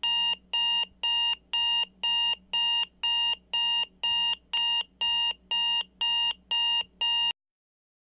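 Electronic alarm clock beeping in a steady rhythm of about two high-pitched beeps a second, cutting off suddenly near the end, as if switched off.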